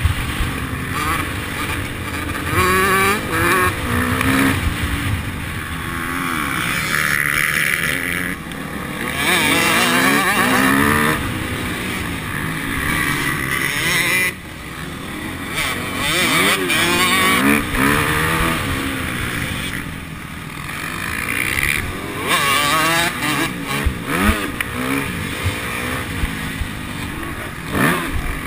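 Motocross bike engine heard from on board, revving hard with its pitch climbing and dropping over and over as the rider accelerates, shifts and backs off through the turns.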